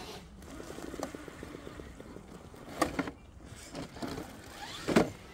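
Radio-controlled rock crawler driving over rubble: its electric motor and gears whir, the whine rising near the end. Two sharp knocks of stone, about three and five seconds in, the second the loudest as a stone slides away.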